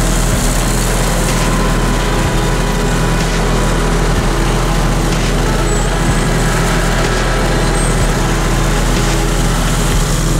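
Slope-Pro tracked slope mower's engine running steadily at constant speed as its rotary deck cuts through tall dry grass.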